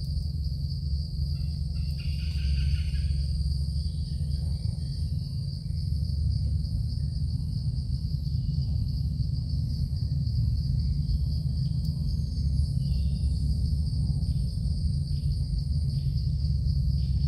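Night insects chirring in one steady high band, over a louder steady low rumble. A short higher-pitched sound comes about two seconds in.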